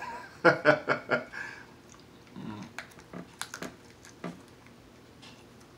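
A man's short burst of laughter, then the wet mouth sounds of eating king crab: chewing, lip smacks and fingers being sucked, with a handful of sharp clicks.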